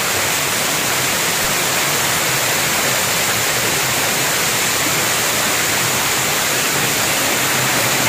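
Steady rush of water from a waterfall and the fast, shallow rocky stream below it, an even hiss with no breaks.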